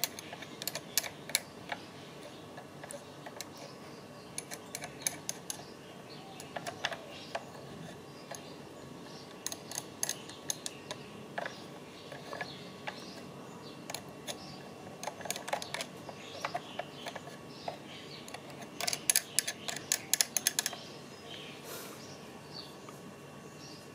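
Hard plastic parts of a car's folding side-mirror assembly clicking and tapping as they are handled: scattered light clicks, with a quick run of them near the end.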